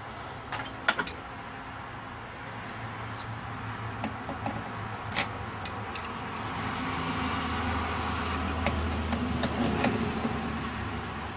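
Light metal clicks and clinks as a steering-wheel puller and its bolts are handled and set on the steering wheel hub, with a quick cluster of three sharp clicks about a second in and scattered single clicks after. A steady low hum runs underneath, getting louder about halfway through.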